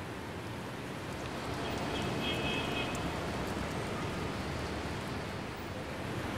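Steady rain falling, an even hiss that grows a little louder about a second in.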